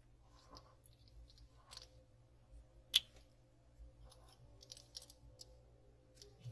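Small clicks and handling noises, with one sharp click about three seconds in and a few lighter clicks around five seconds, from the aluminium badge holder and wallet being handled.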